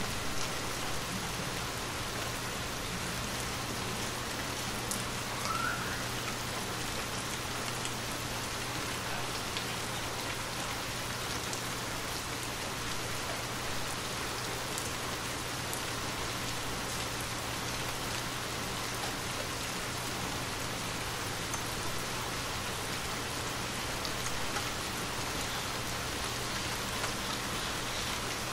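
Steady rain falling, an even hiss with scattered faint drop ticks, over a low steady hum.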